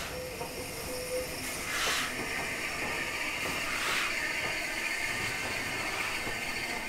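Southern Railway Schools class 4-4-0 steam locomotive No. 926 'Repton' moving slowly past with a steady hiss of escaping steam. Two louder bursts of steam come about two seconds apart.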